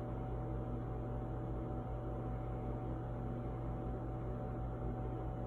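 A steady low hum with a thin higher tone above it and a light hiss, unchanging, with no other events.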